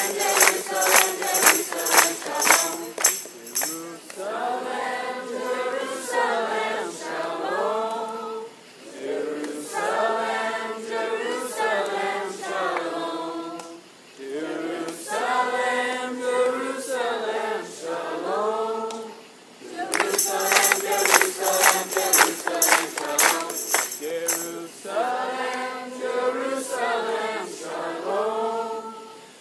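Choir singing a worship song in long, repeated phrases. A quick, rhythmic high percussion joins at the start and again about two-thirds of the way through.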